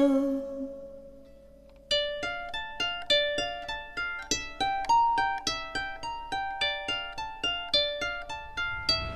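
Background music of quick plucked-string notes, each fading fast, in an even run that starts about two seconds in after a fading note and short pause.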